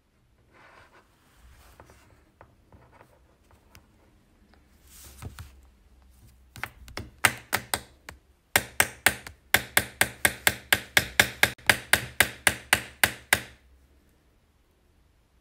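Cockatoo rapidly tapping a plastic pen held in its foot against a desk: after a few seconds of faint scratching and rustling, a run of sharp taps about four or five a second that goes on for some seven seconds and stops abruptly.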